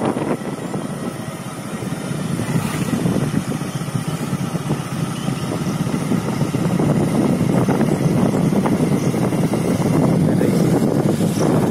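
Motorcycle running along a road, its engine mixed with rushing wind noise on the microphone, getting louder over the first half as it picks up speed.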